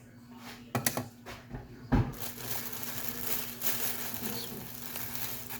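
Kitchen tongs clacking and knocking a few times, the loudest knock about two seconds in, followed by steady crinkly rustling as food is handled onto a paper plate.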